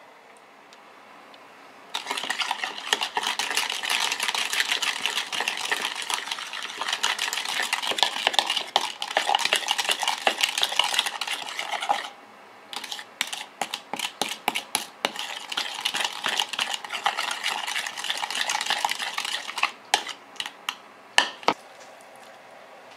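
A spoon stirring and scraping quickly around a mixing bowl, working a thick miso dressing. The stirring starts about two seconds in, runs for about ten seconds, pauses briefly, then goes on in separate strokes for about seven seconds, followed by a few sharp taps.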